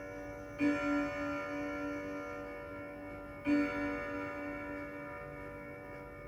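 1925 French Vedette dual-chime clock striking on its gong: two single strokes about three seconds apart, each ringing out long with a slightly wavering hum.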